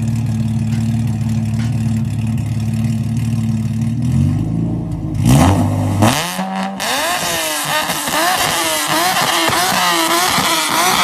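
Car engine idling steadily with a deep exhaust note. About four seconds in it is revved hard, with a couple of loud bangs, then revved up and down over and over with a hiss.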